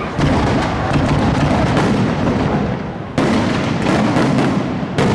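Aerial fireworks display: a dense barrage of shells launching and bursting in quick succession, bangs and crackle overlapping, with a fresh loud volley about three seconds in.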